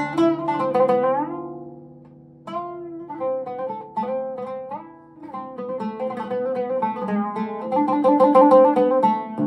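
Oud played solo with a plectrum, a saz semai in makam Şehnaz: a phrase of plucked notes dies away about two seconds in, then a new phrase begins and builds to fast picking near the end.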